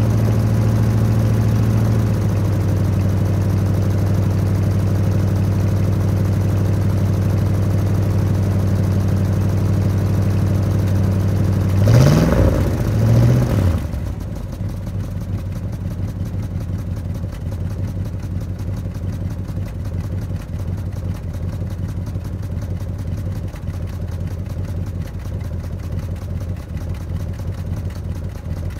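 1966 Plymouth Barracuda's 318 two-barrel V8 idling while it warms up after a cold start. About twelve seconds in the throttle is blipped twice in quick succession, and the engine then settles to a lower, quieter idle.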